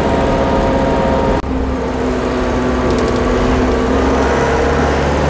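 Minibus engine and road noise heard from inside the cabin while driving, steady and loud. About a second and a half in it changes abruptly to a lower, steady engine hum.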